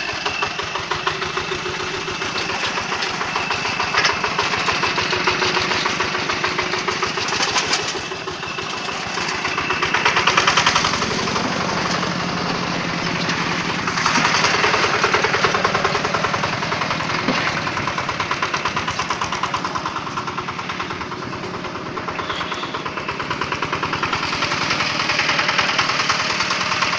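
Small engine on a brick-carrying block truck running with a rapid clatter, swelling louder twice, about ten seconds in and again around fourteen seconds.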